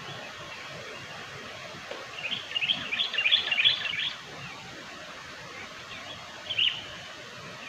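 Sooty-headed bulbul (kutilang) calls: a quick run of chattering chirps about two seconds in, then a single short call near the end, over steady outdoor background noise.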